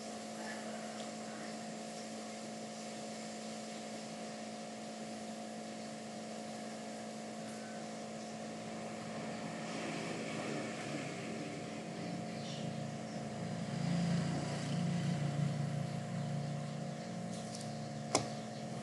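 Steady electrical hum and room noise. A low rumble swells and fades between about twelve and seventeen seconds in, and a single sharp click comes just before the end.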